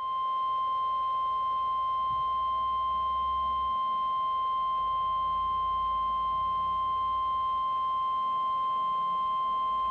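Weather radio warning alarm tone: a single steady 1050 Hz sine tone held for about ten seconds, starting and stopping abruptly, received over a VHF weather radio broadcast. It is the alert that signals a new severe thunderstorm warning is about to be read.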